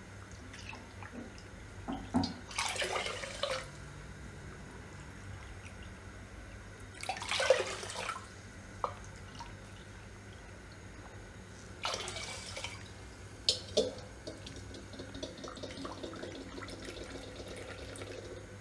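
Water poured from a plastic measuring cup into a stainless-steel pot of sugar for syrup: three cupfuls, each splash lasting about a second, with drips between the pours.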